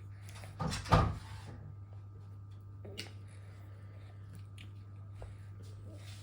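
A dull thump about a second in and a light click about three seconds later, over a steady low hum.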